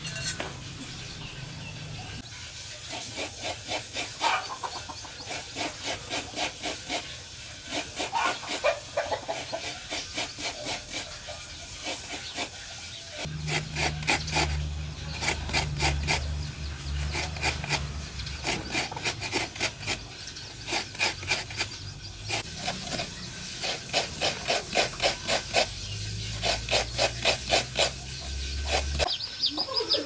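Coconut flesh being scraped on a serrated coconut grater: runs of quick rhythmic rasping strokes, about three a second, with short pauses between runs. A low steady hum comes in about halfway through and stops shortly before the end.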